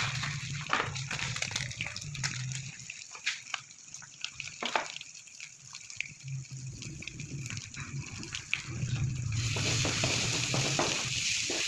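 Water splashing and pouring, with scattered clinks and knocks of kitchen utensils. About nine seconds in, a steady frying sizzle starts suddenly.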